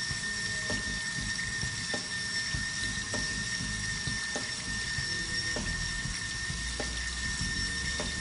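Horizontal metal-cutting bandsaw running with coolant flowing: a steady high whine over a trickle of liquid, with a faint click about every second and a quarter.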